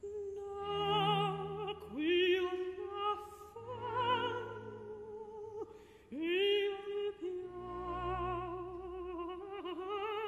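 A female opera singer holding long notes with a wide vibrato, sliding up into a new phrase about two seconds in and again about six seconds in, over a quiet low accompaniment.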